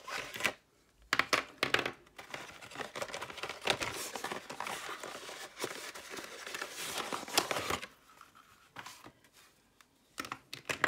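Plastic felt-tip markers being taken out of a cardboard box and set down on a table: rustling of the box with many small plastic clicks. It dies down about eight seconds in, then a few more clicks near the end.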